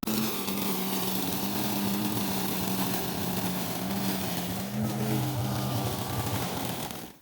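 Greenworks 40 V cordless electric lawn mower running through thick grass, a steady motor hum under a hiss of blade and cut grass. Its hum drops lower about five seconds in under the heavy load, and it cuts out near the end as the battery runs dead.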